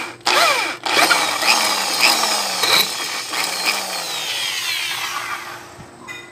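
Electric hand drill boring into an aluminium motorcycle cylinder head. It starts about a quarter second in, stops briefly just before the one-second mark, then runs with a wavering pitch and dies away after about five seconds.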